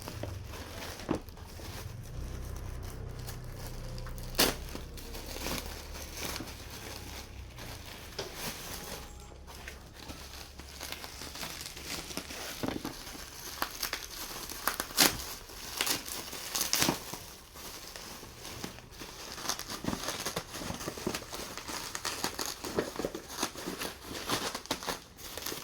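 Packaging being handled and opened, with irregular crinkling, crackling and tearing sounds and occasional sharp clicks.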